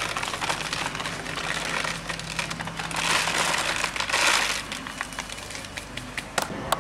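Woven polypropylene bulk bag rustling and crinkling as hands work in it, with granulated plastic regrind pouring through the fingers in two spells about three and four seconds in. A few sharp ticks near the end, over a faint steady hum.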